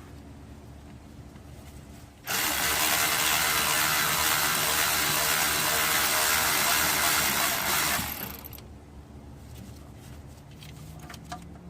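Handheld power tool running steadily for about five and a half seconds, starting a couple of seconds in and then stopping, as it drives an alternator mounting bolt home. Faint tool clicks and taps come before and after it.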